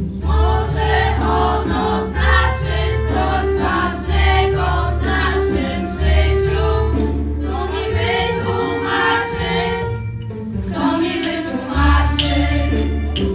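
Group of voices singing a song together over band accompaniment with a pulsing bass beat; the singing breaks off about ten seconds in and the band plays on.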